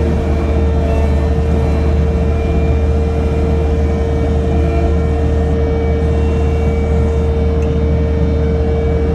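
Kubota SL75-2 tracked skid steer's 75-horsepower diesel engine running steadily under work, a constant low drone with a steady high whine over it.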